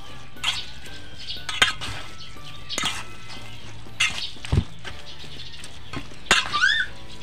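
Spoon and fork scraping and clinking against a stainless steel mixing bowl as a moist flaked-fish mixture is stirred, in short scattered strokes. A brief high squeaky call glides up and down near the end.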